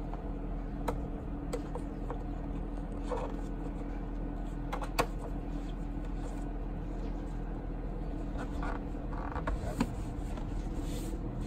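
Light clicks and taps from the plastic oil filler cap being screwed shut on a BMW inline-six's valve cover, then a cloth rubbing over the engine cover near the end. A steady low hum runs underneath.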